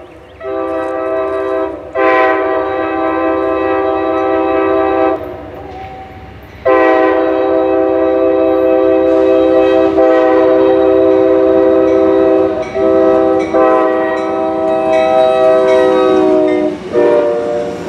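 Multi-chime air horn of an Amtrak GE P42DC diesel locomotive blowing a series of long blasts with one short blast near the end, the long-long-short-long pattern sounded for a grade crossing. Under it, the low rumble of the approaching train.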